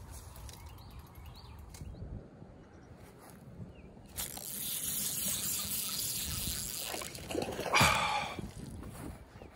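A cast with a spinning rod: a hissing whoosh, then a short loud burst late on as the line goes out and the lure lands in the water.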